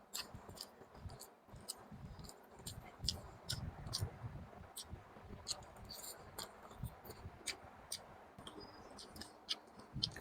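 Close-miked mouth sounds of eating chicken and vegetables in gravy: wet chewing and lip smacks, heard as irregular sharp clicks several times a second over soft low thuds.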